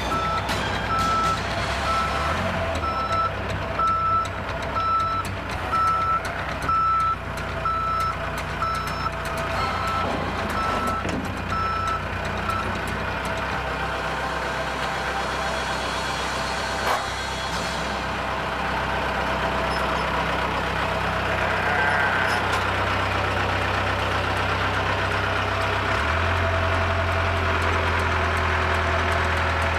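Backhoe's diesel engine running with its reversing alarm beeping steadily for the first twelve seconds or so; the engine grows louder near the end.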